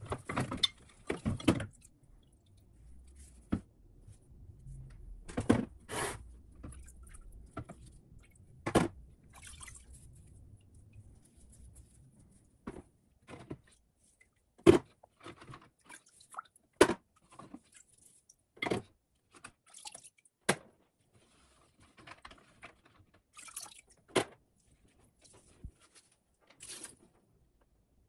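Small metal vise parts being lifted out of a bucket of soaking liquid, with drips and splashes, and set down into a plastic tub with irregular sharp clicks and knocks.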